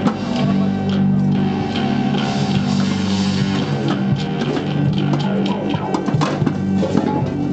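Live street music led by an electric guitar, with plucked notes and other instruments playing along.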